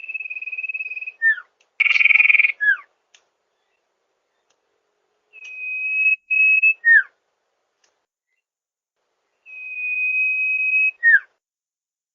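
Sirtu bird calling three times, each call a long level whistle followed by a quick falling note, with a louder, rougher note about two seconds in.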